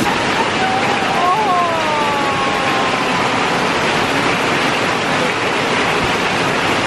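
Heavy tropical rain pouring down in a steady, loud, even hiss. About a second in, a brief high call wavers and then falls over it.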